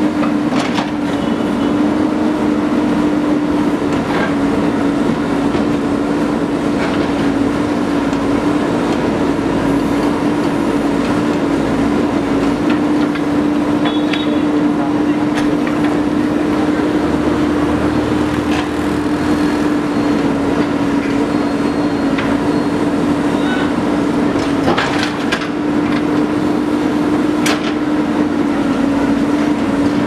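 JCB 3DX backhoe loader's diesel engine running steadily under load as the backhoe arm digs, a constant drone with no change in pitch. A few sharp knocks from the bucket and arm break through now and then.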